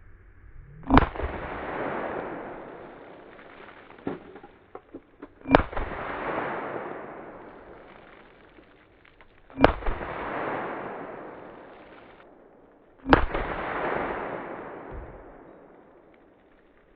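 Four gunshots a few seconds apart, each followed by a long, drawn-out rumbling tail that fades over about three seconds, with a few small clicks between the first and second shot.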